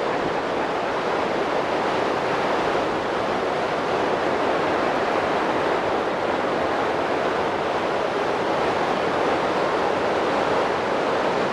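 Webuye Falls on the Nzoia River: water rushing over the falls in a loud, steady, unbroken noise.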